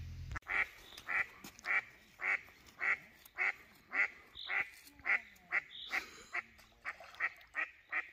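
A duck quacking in a steady, regular series, a little under two quacks a second.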